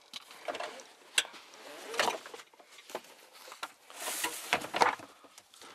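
Rummaging through loose junk inside a car: rustling of cloth and paper with scattered clicks and knocks as things are moved. The loudest rustle comes about four seconds in.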